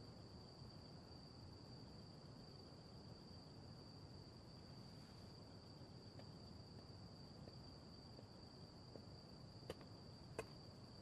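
Near silence with faint, steady, high-pitched cricket chirring, and two faint ticks near the end.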